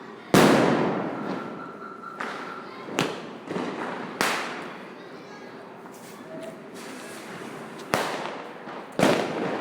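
Diwali firecrackers bursting: five sharp bangs, each trailing off in an echo. The first, about a third of a second in, is the loudest, with others near 3, 4, 8 and 9 seconds.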